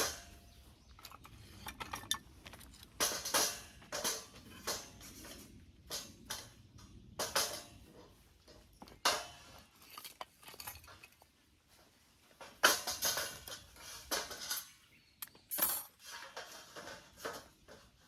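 Metal camp cookware and utensils clinking and clanking, a string of irregular knocks as gear is handled.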